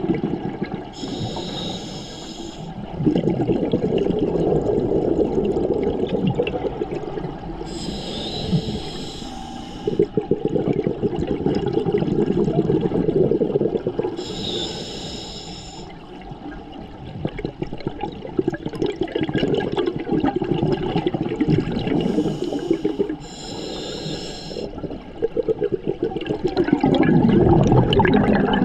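Scuba diver breathing through a regulator underwater: a short hissing inhale about every six to seven seconds, five in all, each followed by a long bubbling exhale.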